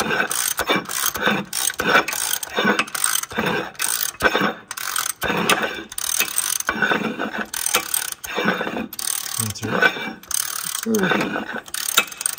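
Counterbore cutter turning on a Cat 3406 diesel block, its bit cutting the cast iron liner counterbore in the deck: a rapid, uneven run of scraping, clicking strokes, about three a second.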